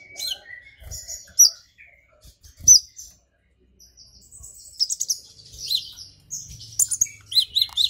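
Purple-throated sunbird singing: rapid, sharp high chirps and quick downward-sweeping notes, sparse at first and coming thick and fast over the last few seconds, in excited song. A couple of soft low thumps sound in the first few seconds.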